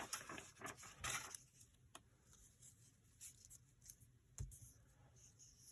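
Faint paper handling: soft rustles and a few light taps as paper pieces are moved about on a craft table, with a small tap about four and a half seconds in.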